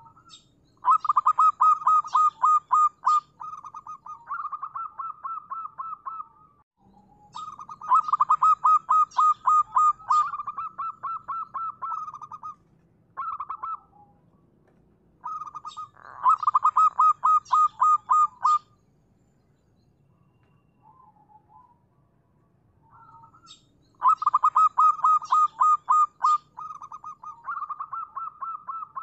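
Zebra dove (perkutut) singing: four bouts of fast staccato cooing notes, each a few seconds long, loud at the start and trailing off softer.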